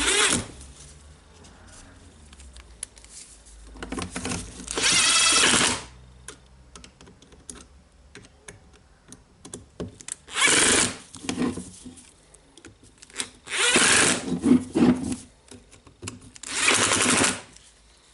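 Cordless electric screwdriver running in short bursts of one to two seconds, about five times, driving in the screws of the grinder's gear housing, with light clicks of small parts being handled in between.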